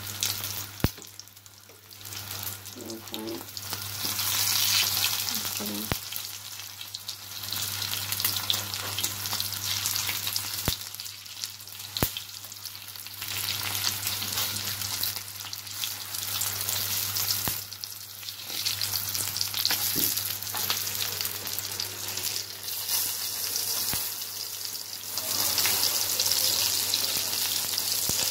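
Oil sizzling under egg-dipped potato tikkis shallow-frying on an iron tawa, swelling and easing as they are turned. A few sharp taps of the spatula against the griddle sound as the patties are flipped.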